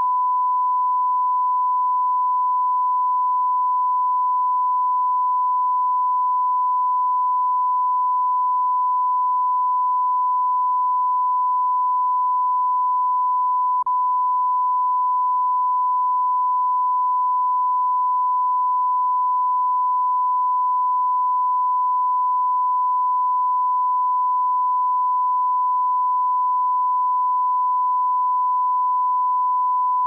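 Broadcast line-up test tone: one steady, unbroken pure tone played with colour bars at the head of a tape, with a brief click about fourteen seconds in.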